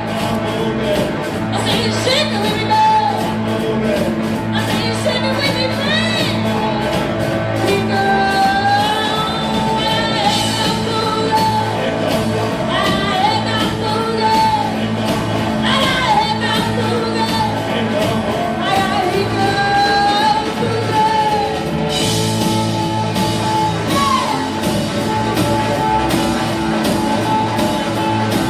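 Live blues-rock band playing a boogie: a steady bass and drum groove under a lead line that bends up and down in pitch.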